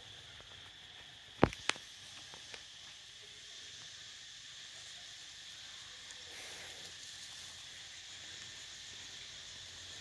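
Steady high insect drone with two sharp clicks close together about a second and a half in.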